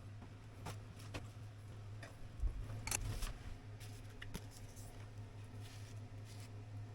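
Scattered light clicks and brief handling noises, a cluster of them about three seconds in, over a steady low hum.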